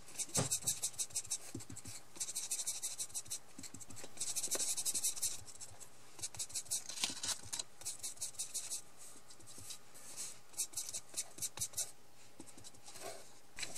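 Foam finger dauber rubbed and dabbed over a strip of paper in quick strokes, a dry scratchy brushing that comes and goes in runs, as ink is blended onto the paper.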